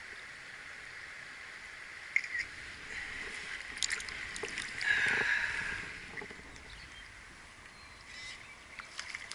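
Hands sloshing and splashing in shallow stream water while releasing a brown trout, loudest about five seconds in, over the steady rush of the stream, with a few light knocks.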